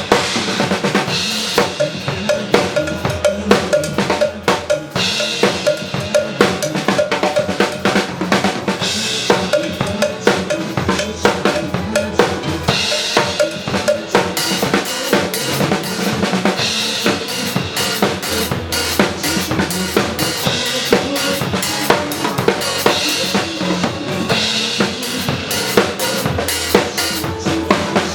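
Drum kit played in a steady, busy groove, with kick drum, snare and cymbal strokes throughout, over pitched backing music.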